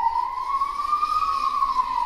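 A recorded 'sky trumpet' sound: one long siren-like tone that rises in pitch, peaks a little past the middle and then slides back down.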